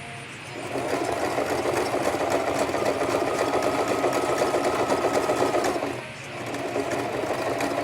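Sewing machine stitching doubled-over hair wefts: it runs for about five seconds, stops briefly, then starts stitching again near the end.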